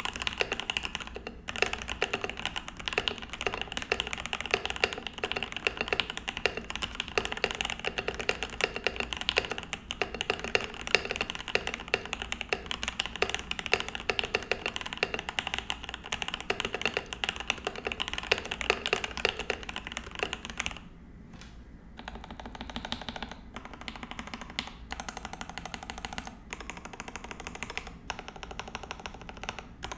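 Typing on a RAMA U80-A mechanical keyboard with lubed and filmed Gateron Oil King switches on a brass plate, PBT keycaps, without the silicone dampener. Quick, steady keystrokes that break off about two-thirds of the way through, then resume sparser and quieter.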